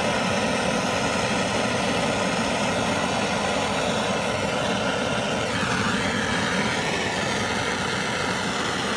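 BernzOMatic trigger-start plumbing torch flame burning steadily, a continuous hissing rush while a radiator fitting is heated for soldering.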